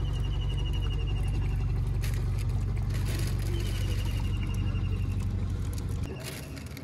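A dog lapping milk from a bowl over a steady low rumble that drops away near the end. Twice comes a high, fast-pulsed trilling call, each about two seconds long.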